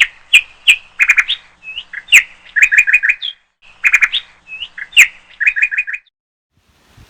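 Small birds chirping: sharp high chirps, some single and some in quick runs of four or five, stopping about six seconds in.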